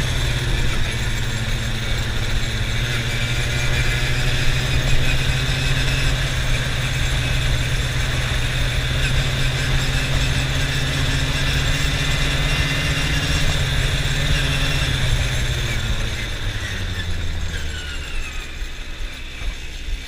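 Quad bike (ATV) engine running at a steady cruising speed, heard from the rider's seat. Its pitch falls about three-quarters of the way through as the quad slows.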